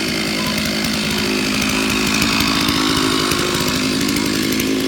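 Chainsaw running steadily under load, cutting through a tree trunk.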